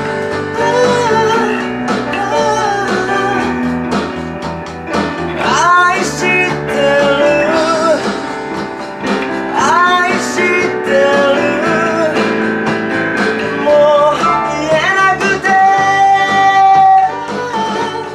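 A small band playing a pop ballad together: electric bass, an electronic drum kit played through an amplifier, and digital piano chords, with a melody line on top that slides up into its notes and holds a long note near the end.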